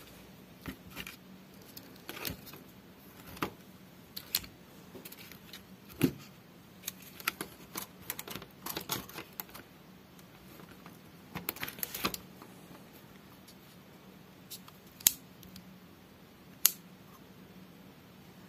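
Scattered clicks and light rattles of plastic inkjet-printer parts being handled and turned over, coming in irregular clusters, with two sharp single clicks in the last few seconds.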